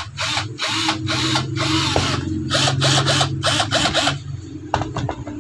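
Ozito cordless drill's motor run in short trigger pulses, spinning up and back down about ten times in quick succession and stopping about four seconds in, with a few clicks near the end. The drill is running on a converted battery pack.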